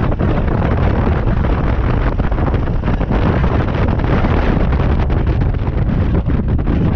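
Wind rumbling loudly and steadily on the microphone of a camera mounted on a moving motorbike, with the bike's engine and road noise mixed underneath.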